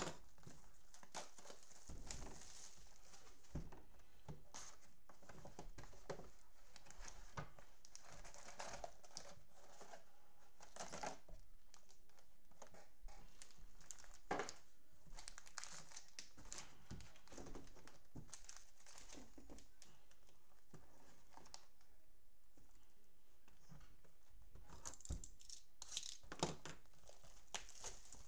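Cellophane-wrapped trading card packs and their cardboard box being handled, with plastic crinkling and tearing in irregular bursts as the box is opened and the packs are lifted out. There is a quieter stretch about two thirds of the way through.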